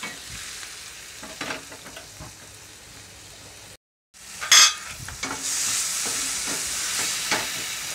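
Diced tomatoes and minced garlic sizzling in hot oil in a nonstick frying pan while a wooden spatula stirs them, scraping and knocking against the pan. The tomatoes are being fried soft. The sound cuts out briefly about four seconds in, then comes back with a loud scrape, and the sizzle is louder after that.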